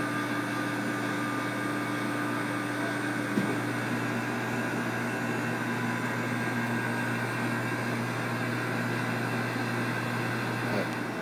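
Steady machine hum and air-handling noise from snack-bar equipment: several steady tones over an even hiss. There is a brief click about three and a half seconds in.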